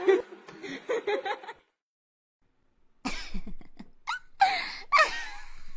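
Short bursts of voice sounds, cough-like, with brief pitched sounds that rise and fall. They break off for over a second of silence about halfway and then start again.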